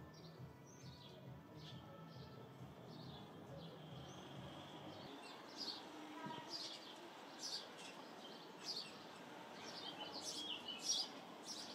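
House sparrows chirping repeatedly, the short chirps growing louder and more frequent about halfway through. A low rumble underneath stops about five seconds in.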